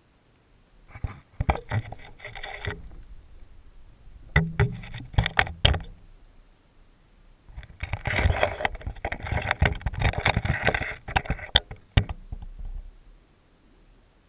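Handling noise from a GoPro in its waterproof housing being moved about in an aquarium: three bursts of rubbing and knocking, the longest from about eight to twelve seconds in.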